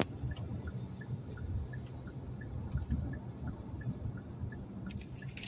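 Steady low road and engine rumble heard from inside a moving car, with a faint, regular ticking about three times a second.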